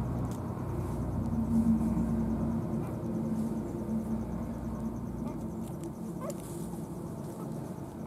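Newborn puppy nursing at its mother, giving a brief squeak about six seconds in, over a steady low hum.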